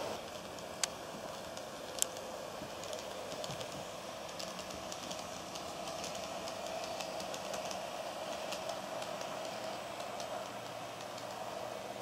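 KATO N scale Rhaetian Railway ABe 8/12 'Allegra' model train running on sectional track under PWM power: a steady motor hum with light, irregular clicking as the wheels run over the rails, and two sharper clicks about one and two seconds in.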